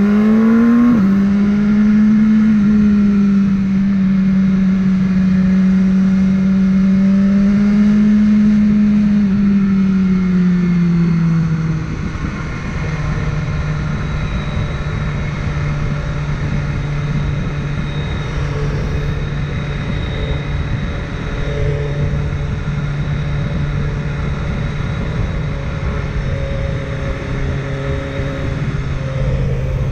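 BMW S1000R inline-four engine pulling hard as its pitch climbs steeply, shifting up about a second in, then holding steady revs. About twelve seconds in the revs fall away and it settles into a lower, steady cruise to the end.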